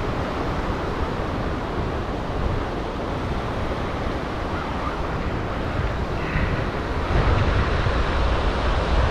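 Ocean surf breaking on a beach, with wind rumbling on the microphone that grows heavier about seven seconds in.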